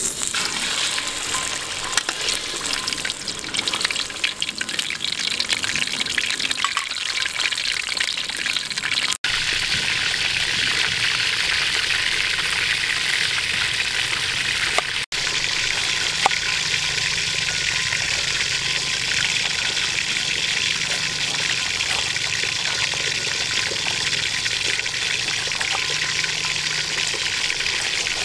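Steady sizzle of a whole fish frying in oil in a wok, broken by two brief dropouts about nine and fifteen seconds in.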